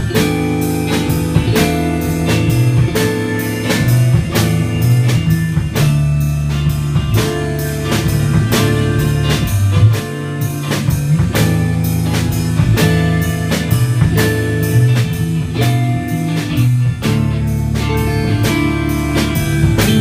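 A rock band playing a song in rehearsal: guitar over a drum kit keeping a steady beat, with a low bass line underneath.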